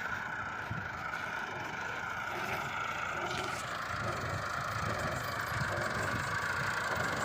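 A machine engine running steadily, slowly getting louder.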